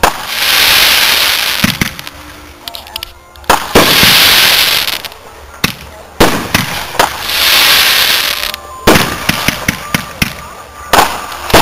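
Aerial firework shells bursting one after another, about every two and a half to three seconds. Each sharp bang is followed by a loud crackling hiss that lasts a second or two.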